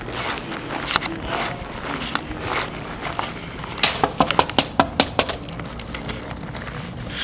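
Rustling and scraping of a handheld phone being moved and covered, with scattered sharp clicks and a quick run of about eight loud clicks around the middle.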